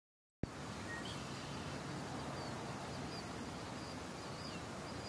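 Outdoor nature ambience: a steady background hiss with faint, scattered short bird chirps. It cuts in abruptly about half a second in, out of dead silence.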